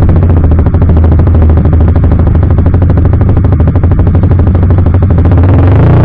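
CFMoto 300SR's single-cylinder engine running through an Akrapovic full-system exhaust while riding, a loud rapid rattle of exhaust beats. The note fills out again near the end.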